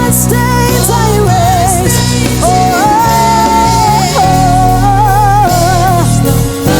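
Contemporary Christian worship song with a band: a lead voice holds long, wavering notes with vibrato over sustained bass and keys, with cymbals ringing.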